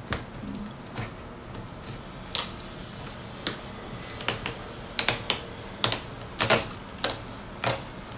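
White packing tape being pulled off a hand-held roll in short tugs and pressed onto a cardboard box, a series of irregular sharp crackles. The crackles come closer together from about halfway through.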